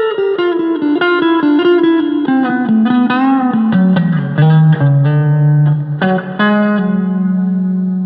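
Agile TC 625 Telecaster-style electric guitar played with a little reverb: a quick descending run of picked single notes with a bend about three seconds in, settling onto held low notes.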